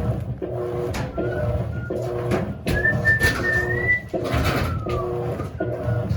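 Electrolux LAC16 top-loading washing machine agitating its wash load: the motor hums in repeated strokes of about a second and a half, with short breaks as it reverses. A brief high whistling tone rises in pitch near the middle.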